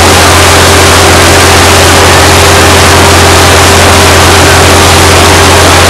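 Hot water and steam blowing out of a freshly drilled geothermal well at a drilling rig: a loud, steady rushing that overloads the recording, with a steady low hum underneath.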